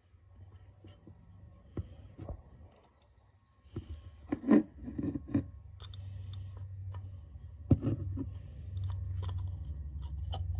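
Scattered clicks, scrapes and a few sharper knocks of Shure Beta 52A microphone parts being handled and fitted back together by hand, over a low steady hum.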